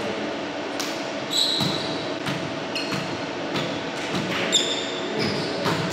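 Sneakers squeaking briefly on a wooden gym floor, twice, with scattered thuds of a volleyball being bounced, in a large gymnasium.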